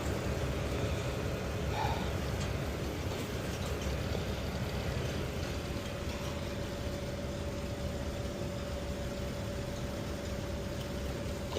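Steady low mechanical hum, with a faint steady whine that comes in about halfway through.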